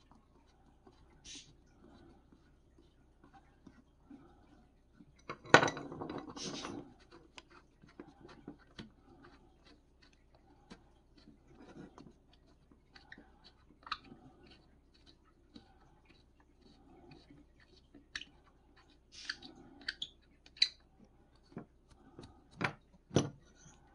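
Small clicks, scrapes and clinks of a screwdriver and bolt being worked out of the wooden handle of an antique paint scraper. A louder clatter comes about five and a half seconds in, and a few sharp knocks near the end.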